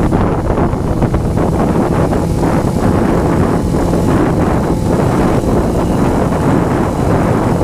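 Heavy wind noise buffeting the microphone on a moving Honda CBR motorcycle, steady and dense, with the engine running faintly beneath it.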